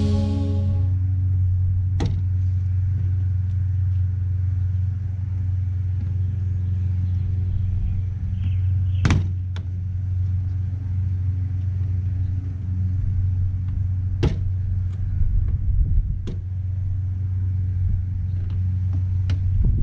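A steady low rumble throughout, with a handful of sharp plastic clicks and knocks a few seconds apart as the rear valance's retaining clips are worked loose from the bumper.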